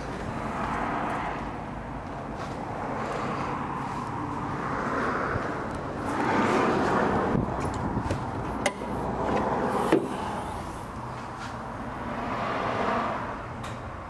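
A car bonnet's safety catch is released with a click under the front edge, then a sharp clunk comes about a second later as the bonnet is lifted. A steady low hum and soft swelling rustles run underneath.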